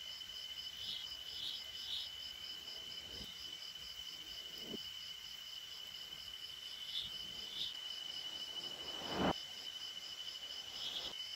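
Crickets trilling steadily, with a few short crackles from burning coconut husk fibre, the loudest about nine seconds in.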